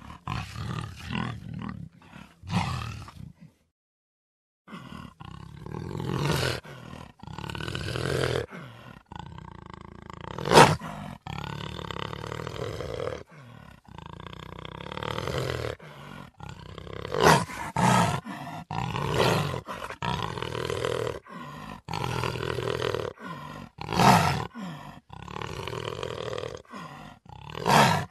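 Jaguar roaring: a long string of rough calls of varying length, with a brief dead silence about four seconds in and the loudest calls near the middle and toward the end.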